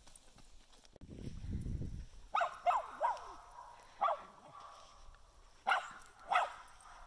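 Small dog barking in sharp yaps, each one dropping a little in pitch: three quick barks, a single bark, then two more near the end. A brief low rumble comes before the first bark.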